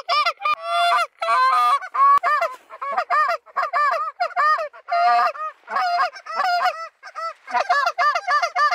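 Canada goose honks: a long run of loud calls one after another, quickening to about three a second near the end.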